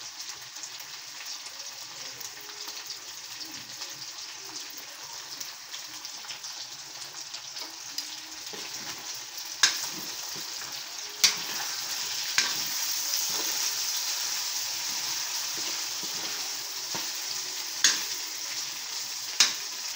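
Pork and potatoes in caldereta sauce sizzling in a pan as it cooks down, stirred with a spatula. The sizzle grows louder about halfway through. The spatula knocks sharply against the pan several times in the second half.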